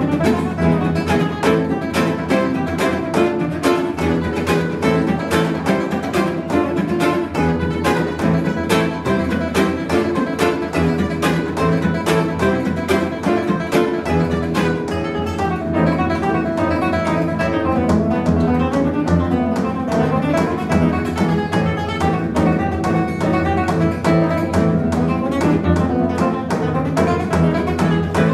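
Two nylon-string acoustic guitars playing live, a fast piece of densely packed, rapidly picked and strummed notes at a steady, loud level.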